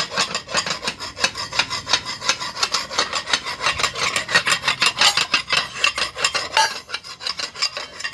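Metal hand tool rasping along the cut edge of a thick iron dosa tawa in fast, even strokes, several a second, taking off the burrs left from cutting the plate.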